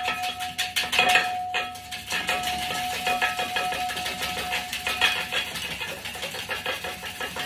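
Wire whisk beating rapidly against a metal mixing bowl, a quick run of clinks, while olive oil is drizzled in slowly to emulsify an egg-yolk Caesar dressing.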